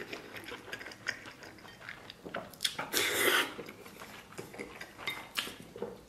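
A man chewing a mouthful of spicy stewed food, with wet smacks and small clicks throughout, and a louder burst of mouth noise about three seconds in.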